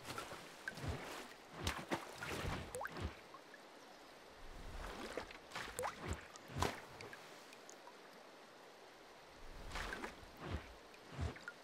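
Water splashing and dripping: a run of irregular splashes, plops and drips with a few short rising bubbling sounds, in clusters with quieter gaps about four and eight seconds in.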